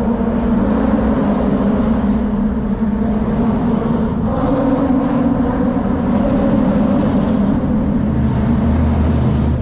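Traffic crossing the open steel-grid deck of the bridge overhead, with the tyres making a loud, steady hum on the grating. The hum shifts pitch about four and a half seconds in, and a deeper rumble joins near the end.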